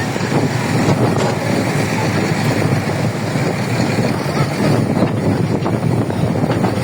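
Large diesel engine running steadily, with a dense, continuous rattling rumble.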